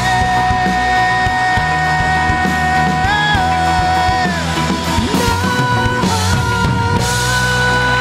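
Rock band playing live: a male singer holds one long note over electric guitar, bass guitar and drums, his voice stepping up briefly about three seconds in before more sung lines.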